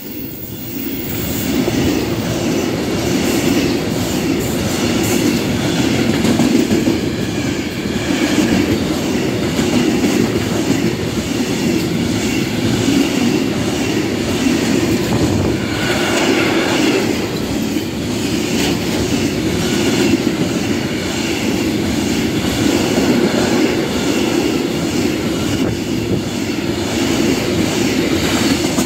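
Intermodal freight train wagons loaded with containers and swap bodies rolling past at speed on a through track. The wheels click rhythmically over the rail joints over a steady loud rumble.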